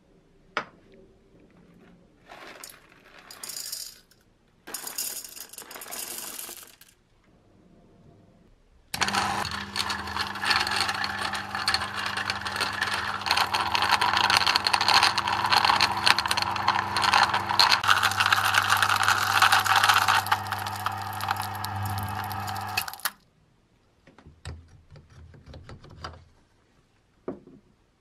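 1947 Piccolo electric coffee grinder running: a steady motor hum under the dense crackle of coffee beans being ground. It switches on about nine seconds in and cuts off suddenly near the end, after a few short rattles before it starts and followed by a couple of knocks as the catch glass is handled.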